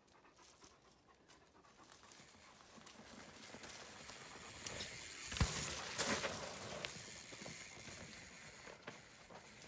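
Enduro mountain bike rolling past on a dirt trail: the tyre noise builds to a peak about halfway through, with a couple of sharp knocks, then fades as the bike moves away. A dog pants close by.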